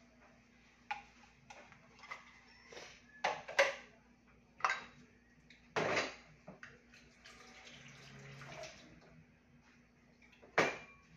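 Washing up at a kitchen sink: plastic containers and dishes knocking and clattering irregularly, with short splashes of water. The loudest clatters come about three and a half, six and ten and a half seconds in.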